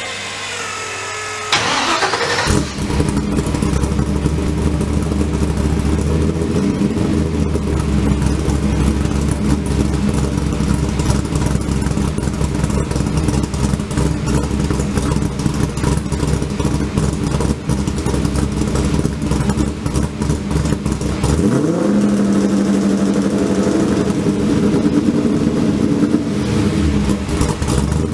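Mazda RX-7 with a swapped-in GM L98 5.7-litre V8: the engine cranks and catches about two seconds in, then idles steadily. About three quarters of the way through it is revved up, held at higher revs for a few seconds, and drops back to idle.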